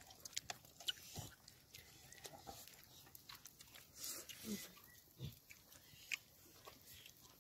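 Quiet eating of roasted chicken: faint chewing and mouth sounds with scattered small clicks, and a couple of short low sounds about four and a half and five seconds in.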